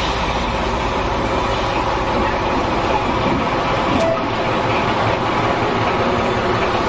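BR Class 14 diesel-hydraulic locomotive, with its Paxman Ventura V6 diesel engine, running steadily as it moves slowly past close by, with a short click about four seconds in.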